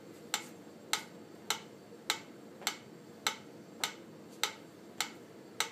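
Metronome clicking steadily at about 100 beats per minute, ten sharp clicks evenly spaced.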